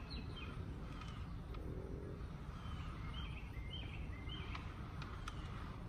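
Outdoor background noise: a steady low rumble, with a bird chirping a short run of quick notes midway through.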